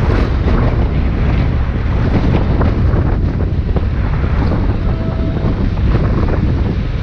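Wind buffeting the microphone while riding a Onewheel at speed, with a steady low rumble and scattered short knocks.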